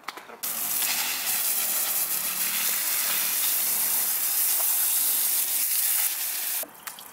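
Garden hose spraying water onto a spoked motorcycle wheel to rinse it, a steady hiss that starts about half a second in and cuts off suddenly near the end.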